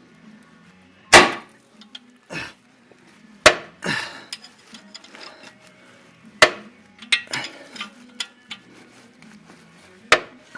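Hand tools clanking against metal as a wrench and ratchet work the alternator belt adjuster bolts: about eight sharp, uneven knocks, the loudest about a second in.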